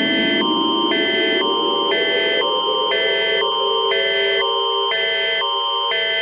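Canadian Alert Ready attention signal: two chords of tones alternating about twice a second over a steady high tone, announcing an emergency alert. A low tone rises slowly underneath it through the first few seconds.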